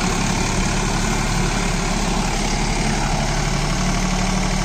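Deutz-Fahr Agromaxx 4055E 55 HP tractor's diesel engine running steadily while it works in low third gear with four-wheel drive, pulling a rigid cultivator.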